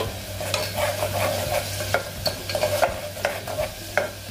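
Ground tomato and coconut masala paste frying in hot oil in a pressure cooker, sizzling, while a metal spoon stirs and scrapes it against the pot with frequent short clicks.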